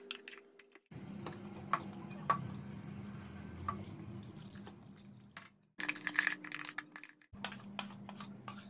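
A metal spoon clinking and scraping against a steel mixer-grinder jar as thick idli batter is scooped into a pot, in scattered sharp clicks. About six seconds in comes a short, denser burst of water being poured and sloshed.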